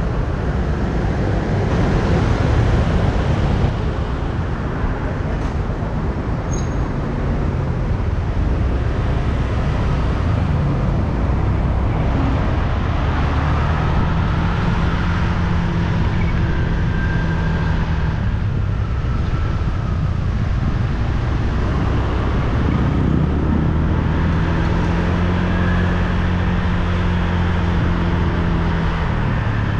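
Motorbike engine running as the bike rides through city traffic, under a constant rush of road noise. The engine note holds a steady pitch for long stretches.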